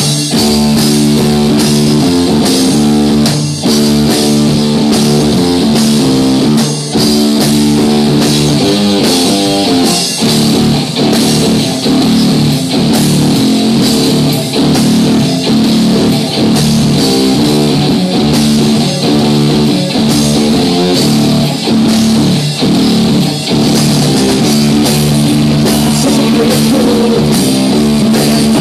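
A live rock duo plays loudly and without a break: an electric guitar riff is played over a full drum kit.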